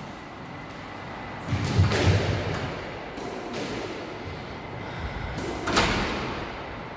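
The glass door of a squash court knocked and rattled twice as a child pushes at it, the second knock, near the end, sharper and louder.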